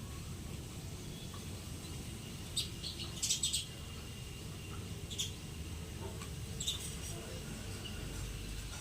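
Small birds chirping: a quick cluster of short, high chirps about three seconds in, then single chirps around five and seven seconds, over a steady low rumble.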